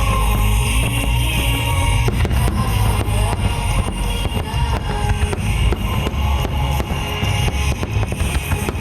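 A dense, continuous barrage of firework bursts, many sharp bangs crowding together over a steady low rumble, with music playing.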